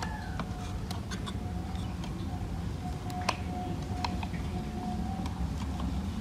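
Scattered small plastic clicks and knocks as the head of a pan-tilt security camera is turned and tilted by hand, one sharper click about three seconds in, over a steady low background hum.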